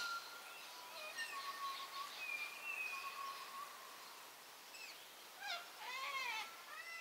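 Faint birdsong: drawn-out whistled notes through the first half, then quick runs of short rising-and-falling chirps near the end.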